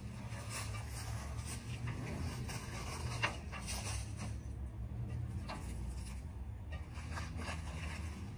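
Plastic wrapping rustling and crinkling as an air-ride valve tank is unwrapped and handled, with small knocks and one sharper click about three seconds in, over a low steady rumble.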